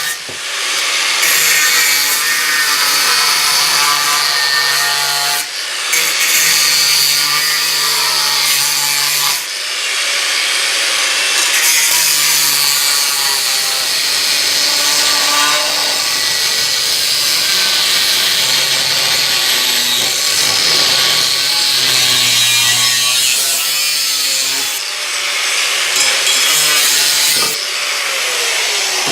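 A power tool cutting through a piece of scrap steel plate, running steadily with brief pauses about 5, 9 and 25 seconds in.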